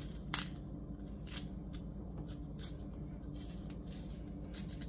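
Green plantain peel being pried and torn off by hand: scattered crisp snaps and rustles of the stiff skin over a steady low hum.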